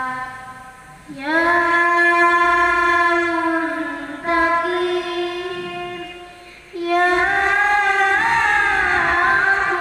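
A group of students chanting a Qur'an recitation (tartil) in unison, in long held notes. There are three phrases, starting about a second in, just past the middle and about two-thirds through, and each opens with an upward slide in pitch.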